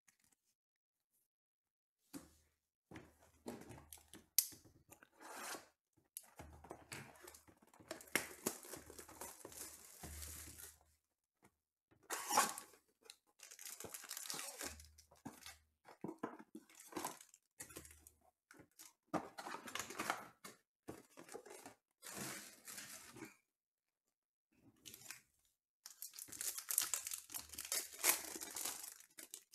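Plastic wrapping and foil card packs being torn and crinkled as a Panini Mosaic football hobby box is unwrapped and its packs are taken out and handled. The sound comes in irregular crackly bursts, with short pauses and a dense stretch of tearing near the end.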